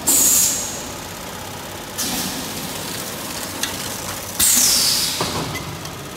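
Thermoforming vacuum packaging machine running through its cycle, with sudden loud bursts of air hissing right at the start and about four and a half seconds in, each with a high whistle that falls in pitch, and a softer burst about two seconds in, over steady machine running noise.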